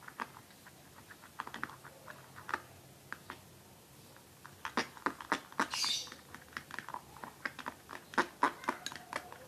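Spoon stirring thickened shampoo in a small bowl: irregular clicks and taps of the spoon against the bowl, getting busier about halfway through, with a brief scrape near the middle.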